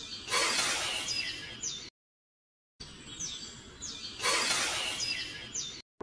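A small hand trowel scraping and scooping dry sand, a gritty hiss heard twice with a brief silence between, over birds chirping in the background.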